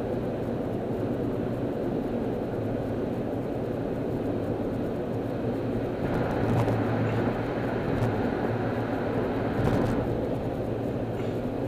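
Steady road and engine rumble inside a car cabin at freeway speed. It grows a little louder and brighter for a few seconds past the middle.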